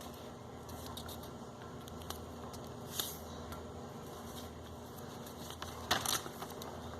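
A sheet of sulfite office paper being handled and folded: soft rustles, with a sharper crinkle about three seconds in and a louder one near six seconds as the fold is pressed.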